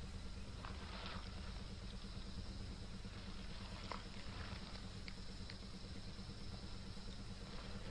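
Low steady background rumble, with a few faint scattered rustles and clicks.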